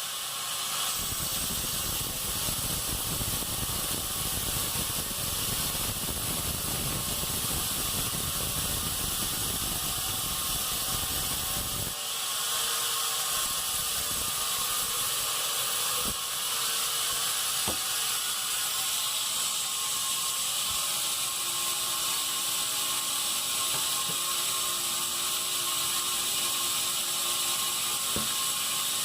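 Band sawmill sawing pine: a steady high-pitched hiss and whine of the blade running through the wood. A low rumble underneath stops suddenly about twelve seconds in, while the high saw noise carries on.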